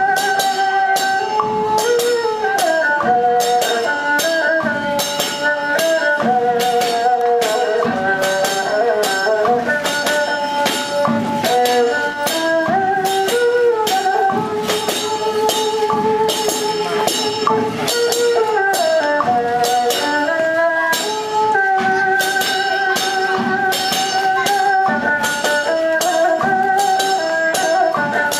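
Erhu, the Chinese two-string bowed fiddle, playing a melody with sliding pitch changes, over a steady percussion beat of about two strikes a second from a drum rig worn on the player's back.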